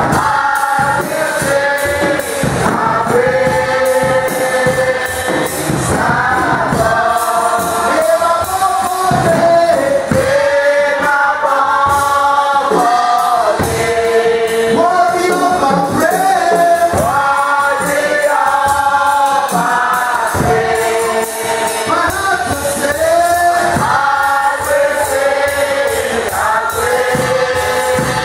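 Live gospel worship singing: several voices sing together into microphones in long, held lines over a steady drum beat.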